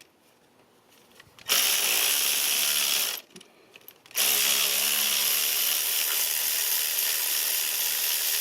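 A ratchet on a 14 mm spark plug socket with a flexible extension, spinning a spark plug loose. It runs in two spells: a short one about a second and a half in, then after a brief pause a longer steady one about four seconds in.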